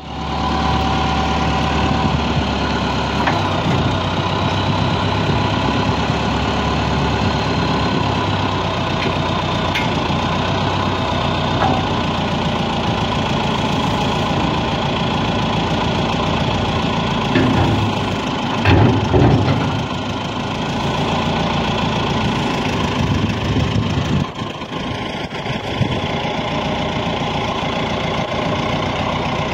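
Tractor engine running steadily at idle, driving the hydraulics of the SM 6000 timber crane as the trailer's support leg goes down and the boom unfolds. There are a few louder surges a little past the middle.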